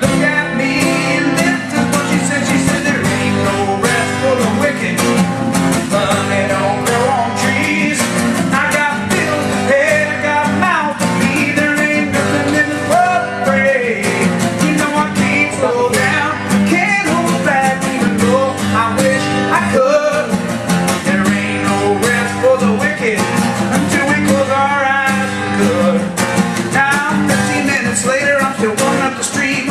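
A man singing to a strummed acoustic guitar.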